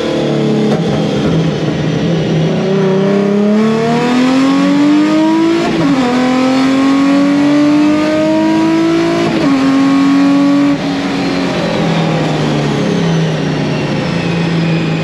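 Supercharged Nissan 350Z's 3.5-litre V6 heard from inside the cabin, accelerating hard through the gears. The revs climb and drop sharply at an upshift about six seconds in, climb again and drop at a second shift about nine seconds in. Just after ten seconds the engine gets quieter and the revs ease down.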